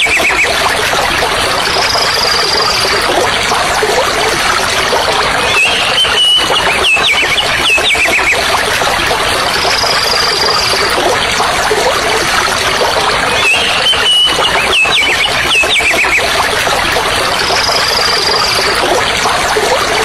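Steady rushing of stream water, with bird calls recurring about every eight seconds as if looped: a short run of quick gliding notes, then a few seconds later one higher, held whistle.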